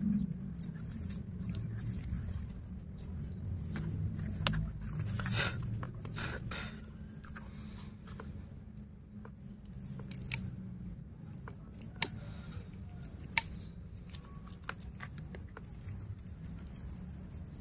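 Small clicks, taps and rustles of a metal hand tool and fingers working aluminium bonsai wire and plastic ties loose around the trunk, with two sharp clicks about two-thirds of the way through.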